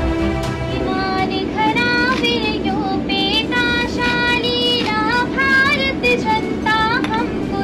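Schoolchildren's voices singing a melody together, high and stepping from note to note, over a steady rumble of the Vande Bharat train carriage.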